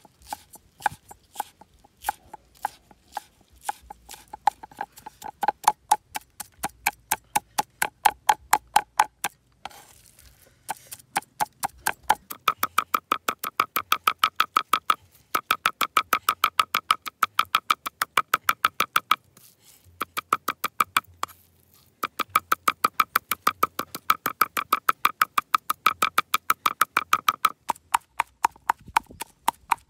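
Meat cleaver chopping and mincing raw meat on a wooden chopping board: fast, even strokes, each with a short metallic ring from the blade. The strokes speed up to about five or six a second, with a couple of short pauses.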